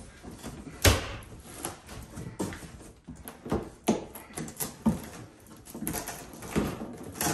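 Wooden kitchen wall cabinet being wrenched and rocked off the wall: a string of uneven knocks, creaks and thumps, the sharpest about a second in and again near the end.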